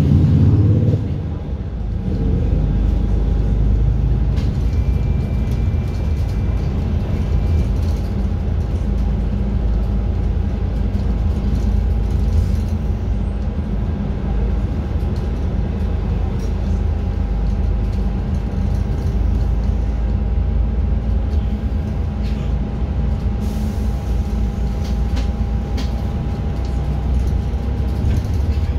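Steady low engine and road rumble from inside a moving city bus, with a constant mid-pitched whine and a few light rattles.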